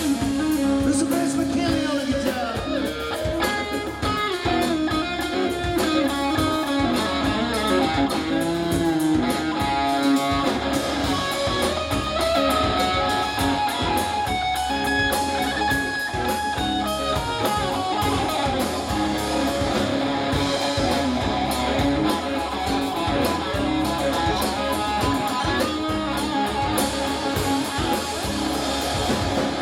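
Live Southern rock band playing an instrumental passage, with electric guitars playing lead lines over bass.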